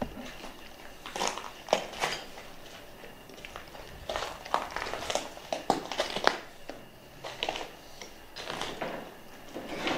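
Footsteps crunching over loose rubble, crumbled plaster and broken boards, in irregular bursts of crunches with a few sharper knocks.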